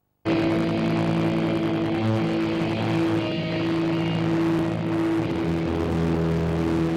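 Distorted amplified guitar drones on held notes. It cuts in abruptly just after the start and keeps a steady level, with the notes breaking off and resuming.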